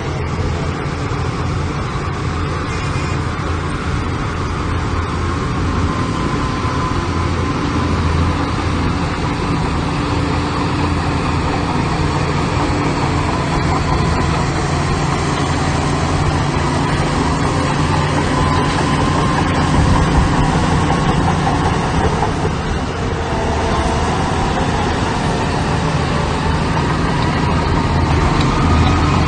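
Heavy diesel machinery engine running steadily, its pitch rising and falling at times as it works.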